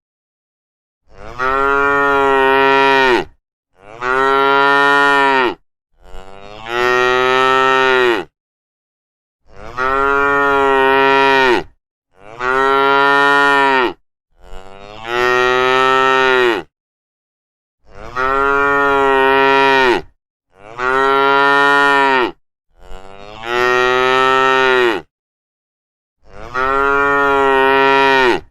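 Domestic cattle mooing: about ten long, low moos of about two seconds each, one after another, with short gaps of dead silence between them.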